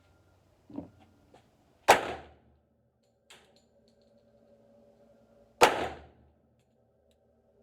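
Two shots from a 1911 A1 pistol in .45 ACP, fired about four seconds apart, each with a short ringing tail. Two fainter clicks fall between them.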